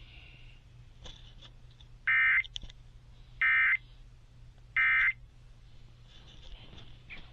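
Emergency Alert System end-of-message data bursts: three short, identical buzzy digital tones about a second apart, the signal that closes an EAS alert.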